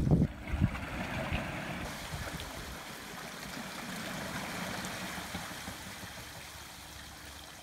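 Wheels of the six-wheeled Hunter WOLF vehicle churning and splashing through shallow water: a steady rushing-water sound that slowly fades, with a couple of low thumps at the start.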